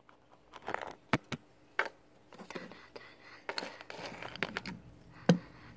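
Handling noise of a phone camera being set down and propped in place: a few sharp taps and knocks, then rubbing and scraping against the phone, and one louder knock near the end.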